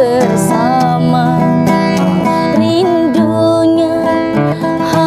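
A woman singing a slow ballad with a wavering, ornamented melody, accompanied by a strummed and plucked acoustic guitar.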